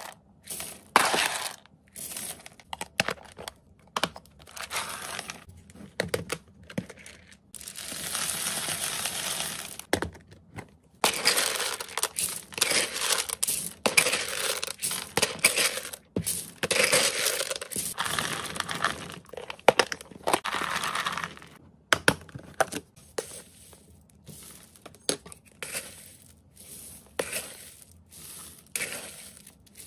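Dry rodent kibble and pellets scooped and poured into a clear plastic bin, rattling against the plastic and each other in long pours and short scoopfuls, with a plastic food bag crinkling as it is opened and emptied.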